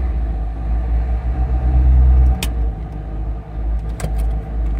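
Low grinding rumble from the driveline of a 2002 Corvette C5 Z06 as the clutch is let out at a crawl, strongest for about two seconds and then easing off. The noise changes with engine rpm, and its cause is unknown. Two short clicks come later.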